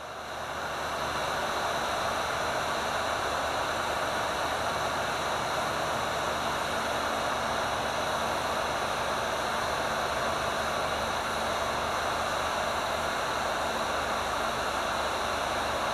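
Electric heat gun running steadily, its fan blowing hot air through a sheet-metal reflector onto a heat-shrink butt connector to shrink it. The airflow noise swells over the first second or so, then holds even.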